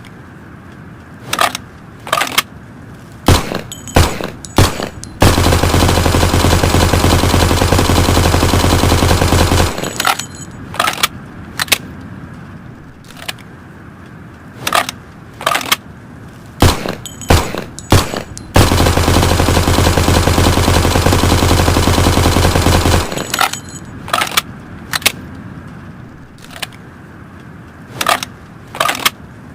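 Thompson submachine gun firing: scattered single shots and short bursts, broken by two long bursts of full-automatic fire of about four seconds each, the first about five seconds in and the second just under halfway through.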